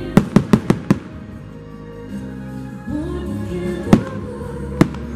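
Firework shells bursting: a quick string of five bangs in the first second, then two single bangs near the end, over the fireworks show's holiday music.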